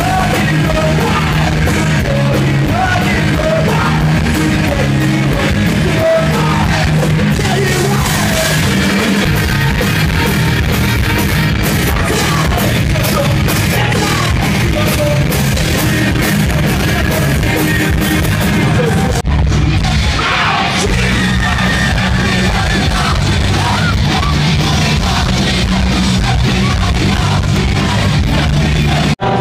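Live rock band playing loud amplified music, with electric guitars, drums and shouted singing. The music jumps abruptly to another passage about two-thirds of the way in.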